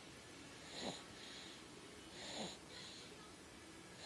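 Snoring: two snores about a second and a half apart, about a second in and past the middle, each a short sound falling in pitch with a breathy hiss.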